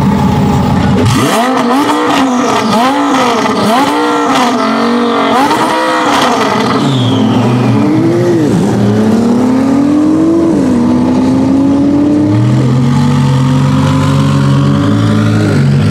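Twin-turbo V10 of a modified 1050 hp Audi R8 GT revved at a standstill: about five quick blips with sharp cracks among them, then two longer revs that each drop away, before it settles back to a steady idle near the end.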